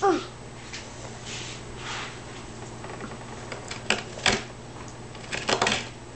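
Hand carving knife slicing into a flat wooden board in short crisp cuts and scrapes, the sharpest a pair about four seconds in and a cluster a little later. A brief high voice sounds at the very start.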